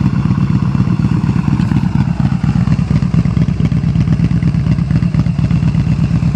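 Yamaha Bolt's air-cooled V-twin idling steadily through a custom slip-on exhaust, with a deep, even pulsing note.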